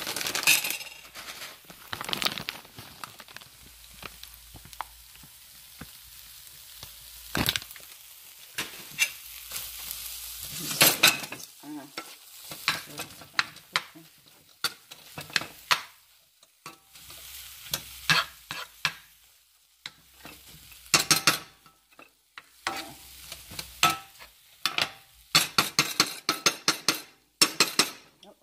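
Scrambled eggs sizzling in a frying pan while a utensil stirs them, scraping and knocking against the pan again and again. The sizzle is heard on its own for a few seconds about four seconds in, between bouts of stirring.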